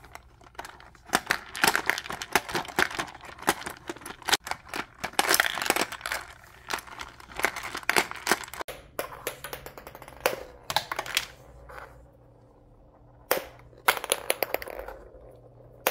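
Plastic 'hungry turtles' marble game being played: a rapid clatter of the turtles' levers snapping and small plastic balls rattling across the board, thinning out after about nine seconds. A few separate sharp plastic knocks near the end.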